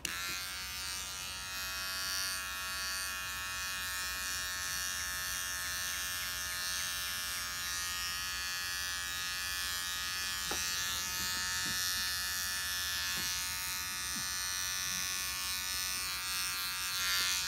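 Electric beard trimmer switching on and running with a steady buzzing hum while clipping short hair close to the scalp at the back of a head.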